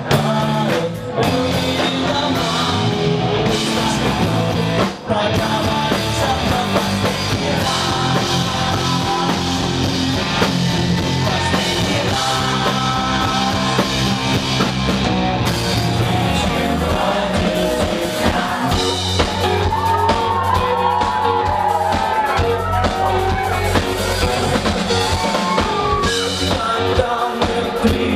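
Live rock band playing: acoustic and electric guitars and a drum kit under a male lead vocal, with two brief dips in the sound in the first five seconds.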